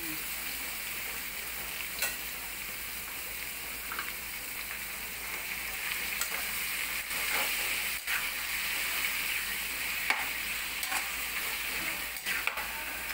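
Sliced beef sizzling as it fries in a metal wok over a gas flame, stirred with a spatula that scrapes and clicks against the pan now and then.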